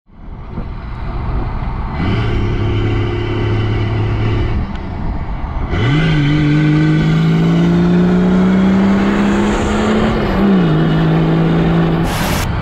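Mercedes OM606 3.0 straight-six turbo diesel heard from inside a Land Rover Defender's cab as it drives and accelerates. The engine note holds steady, rises sharply about six seconds in, climbs slowly, then drops about ten seconds in as it shifts up. A brief burst of static comes near the end.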